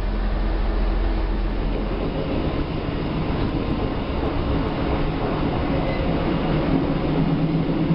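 Running noise of a passenger rail car in motion, heard from inside the car: a steady rumble and rattle that lightens a little about two seconds in.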